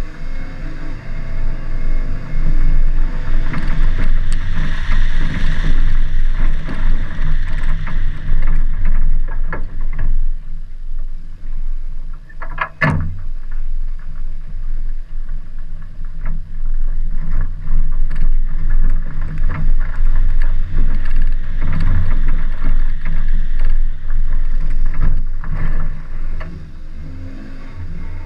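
Chevrolet Cavalier's engine running hard as the car is thrashed, with knocks and rattles throughout and one sharp bang near the middle.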